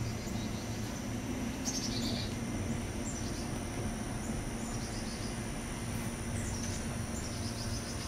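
Outdoor ambience: a steady high insect drone and a low steady hum, with a handful of short bird chirps scattered through.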